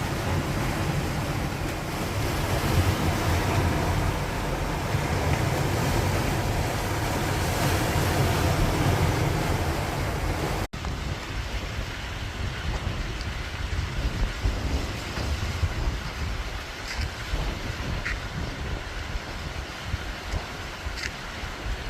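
Sea waves washing on a rocky shore, with wind buffeting the microphone. About eleven seconds in the sound cuts abruptly; after that the gusty low rumble of wind on the microphone is stronger and the surf hiss fainter.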